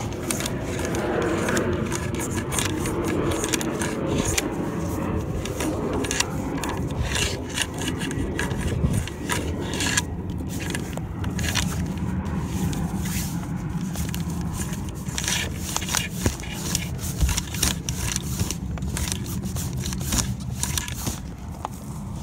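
Close handling noise: sail cloth and a hand rubbing and scraping against the phone, with many irregular clicks and knocks.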